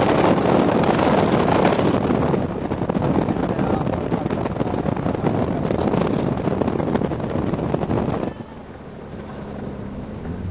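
Subaru Impreza WRX STI's turbocharged flat-four driving across a dirt flat, heard from inside the car under a loud rush of wind and road noise. About eight seconds in, the rush drops off suddenly, leaving a quieter, steady low engine hum.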